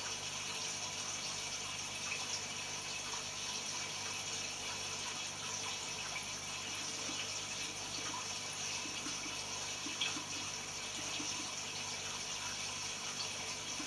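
Home aquarium running: a steady hiss of moving, bubbling water with a faint low hum underneath, and one small tick about ten seconds in.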